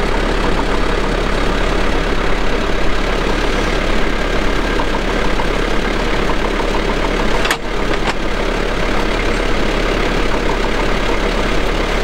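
Recovery truck's engine idling steadily while its lift arm is raised, with two sharp clicks a little past halfway through.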